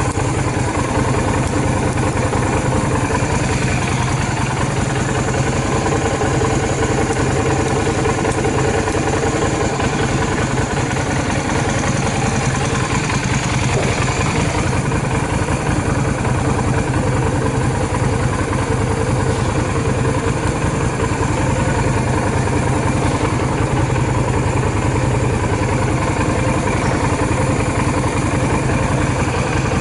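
Yamaha DragStar 250's air-cooled V-twin engine idling steadily, running without any abnormal noise.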